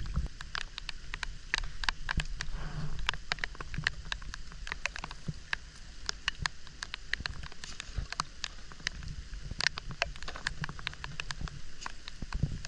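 Rain falling on the water and the wooden boat: many irregular, sharp drop taps over a steady light hiss.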